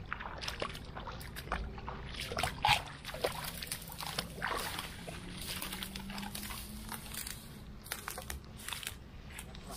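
Water sloshing and splashing irregularly as a large hooked carp is pulled through reeds at the water's edge, with reed leaves rustling. The fish is spent and gives only weak splashes. A faint steady hum sits underneath.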